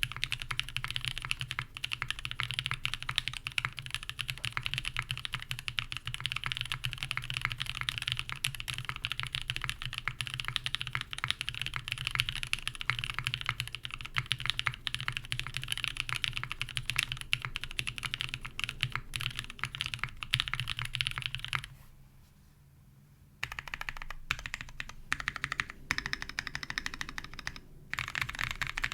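Typing on a Sessantacinque 65% custom mechanical keyboard: top-mounted carbon fibre plate, lubed linear Black Cherry Pies switches (H1 bottoms, Kailh Black stems, Cherry tops) and GMK ABS keycaps, with no dampening. Fast continuous keystrokes stop for a brief pause about three-quarters of the way through, then resume as sparser, more separated key presses.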